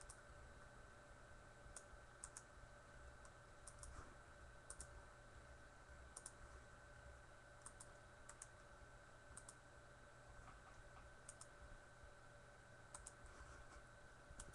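Near silence over a faint steady hum, broken by about fifteen faint, short computer clicks scattered through, several of them in quick pairs.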